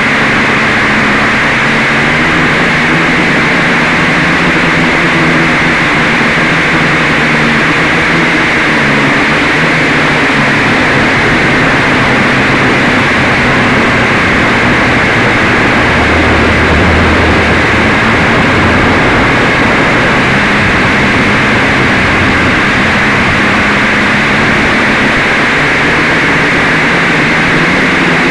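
Quadcopter's electric motors and propellers buzzing loud and close, heard from a camera mounted on the craft, with a hum that drifts in pitch as the throttle changes and a rush of air noise over it.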